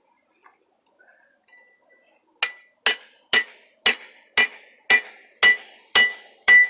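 Near silence for about two seconds, then a hand hammer strikes a mild steel drift seated in a hot iron bar on the anvil: nine even blows, about two a second, each with a bright metallic ring, as the drift is driven through to open the hole.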